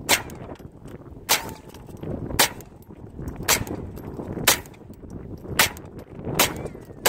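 .22 rifle firing .22 Long Rifle rounds one at a time, about eight sharp shots at roughly one-second intervals.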